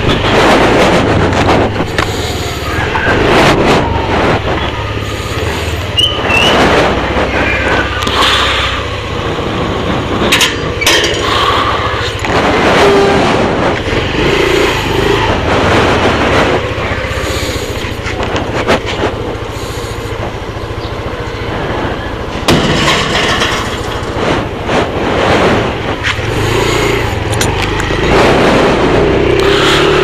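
Motorcycle engine running at riding speed, with wind rumbling on a helmet-mounted action camera's external microphone. A few short knocks about ten seconds in.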